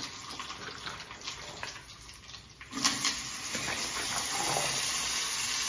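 A spatula stirs chickpeas in a steel bowl with light scattered clicks. About three seconds in, a steady hiss starts suddenly and grows louder: a seasoning of mustard seeds, dried red chillies and curry leaves sizzling in hot oil in a kadai.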